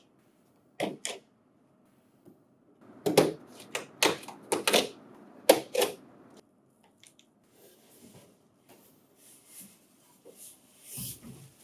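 A cardboard shipping box being opened by hand: a couple of sharp knocks, then a quick cluster of clacks and flap sounds in the middle, then fainter rustling and scraping of cardboard.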